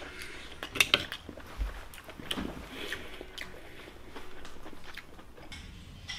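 A metal fork clinks and scrapes against plates and steamed clam shells. There are several sharp clinks, and the loudest come in a quick pair about a second in.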